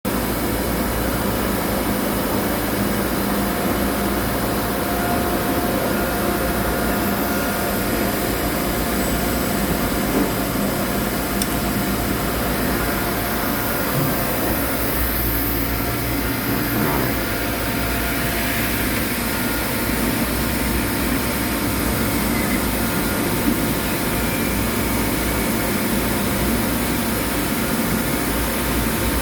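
CNC machine running with a loud, steady noise that holds even throughout, with a few faint steady tones in it.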